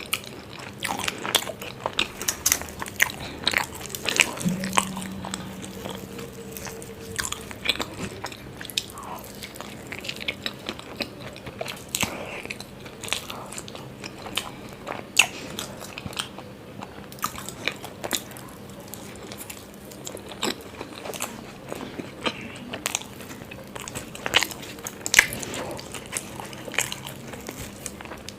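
Close-miked eating: a person biting and chewing stuffed parathas with masala chaap, with frequent irregular crunches, wet mouth clicks and smacks.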